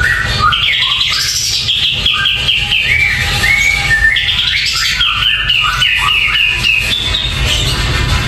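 Caged kapas tembak, a bulbul, singing a fast, continuous run of short, high, quickly falling notes, the full vigorous song that bird keepers call 'gacor'. A steady low rumble lies underneath.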